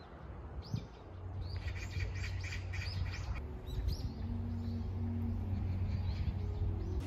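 Small birds chirping outdoors in short repeated calls, busiest in a quick run about two seconds in, over a steady low hum. From about halfway, faint held tones join underneath.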